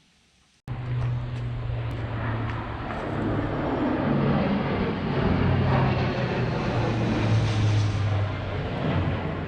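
An engine running steadily, with a low hum under a wide rush of noise. It comes in suddenly about a second in and begins to fade near the end.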